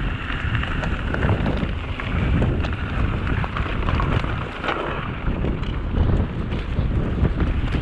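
Mountain bike riding over a dirt forest trail: wind rumbling on the camera microphone, with the tyres rolling over dirt and leaves and small rattling clicks from the bike over bumps.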